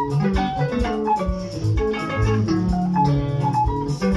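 Instrumental band music: a plucked guitar playing a melody over a bass line and a steady drum beat.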